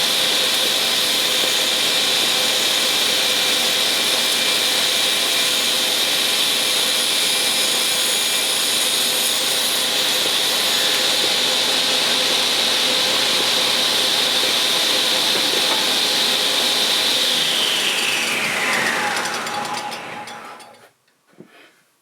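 Craftsman table saw running steadily with a high whine, then switched off about seventeen seconds in and spinning down to a stop.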